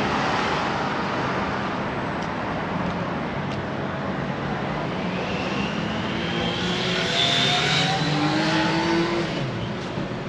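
Suzuki GSX-R600 inline-four engine running over a steady rushing noise. From about halfway its pitch climbs slowly for some four seconds, then falls away near the end.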